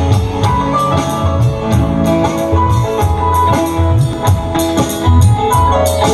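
Live band music: drum kit, electric guitar and keyboard playing over a steady beat with a heavy bass line.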